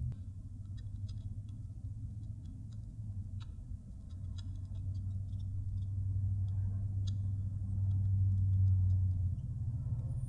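Faint, scattered small clicks and light taps of a soldering iron and solder being worked against the pads of a drone's ESC, over a low steady hum.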